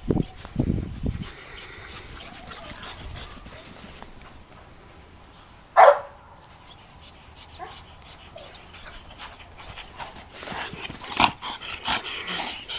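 Two Labrador retrievers at rough play, barking and yipping, with one short, loud bark about halfway through and a run of short barks and yips as they wrestle near the end.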